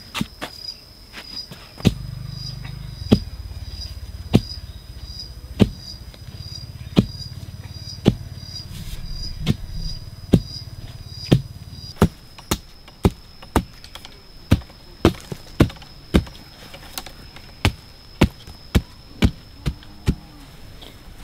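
Hatchet blows on wood: sharp knocks about once a second, then from about halfway a quicker run of about two a second as a wooden stake is driven into the ground. A high insect buzz runs underneath.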